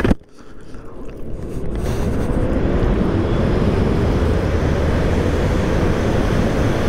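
Electric motorcycle accelerating hard at full throttle: wind and road noise build over the first two seconds to a steady loud rush, with a faint motor whine rising in pitch. A short knock right at the start.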